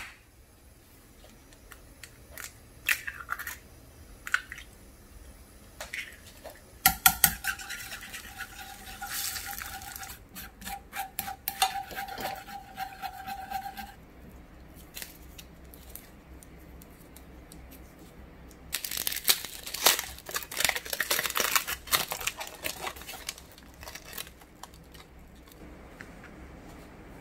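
Kitchen handling sounds: scattered clicks and knocks of cookware and a wooden cutting board being handled. Past the middle come a few seconds of dense scraping and tearing as the skin is peeled off an avocado.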